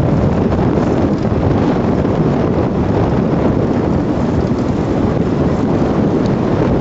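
Loud, steady wind rumble buffeting the microphone, with no engine tone or voice in it.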